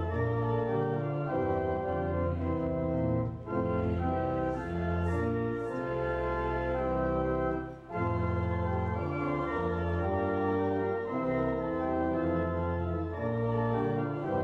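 Church organ playing a hymn in held chords, with a short break between phrases about three and a half seconds in and again about eight seconds in.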